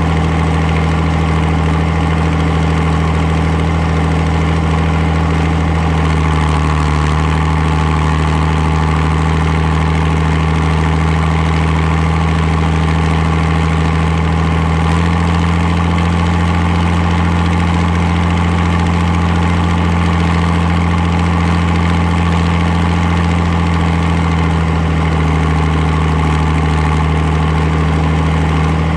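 Farmall 560 diesel tractor's six-cylinder engine running steadily, its note shifting slightly a few times.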